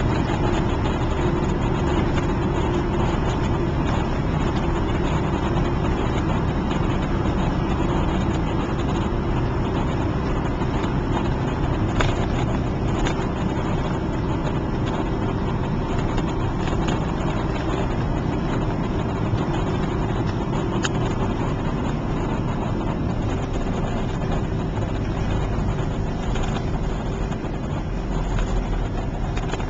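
Steady engine and tyre noise of a moving car, heard from inside the cabin, with a couple of brief clicks.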